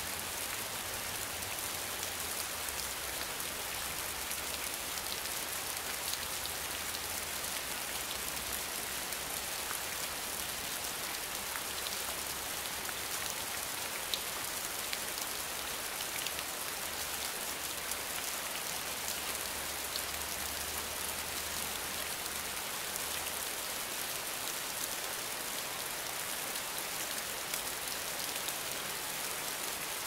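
Steady rain falling on a surface, an even hiss dotted with scattered small drop ticks, with a faint low rumble that comes and goes underneath.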